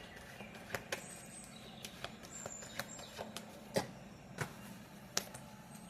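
Faint scattered clicks and taps, about six of them, with a few faint high bird chirps in the background.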